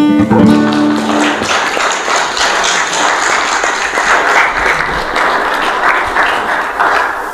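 The last acoustic guitar chord of the song rings out for about a second, then the congregation applauds until near the end.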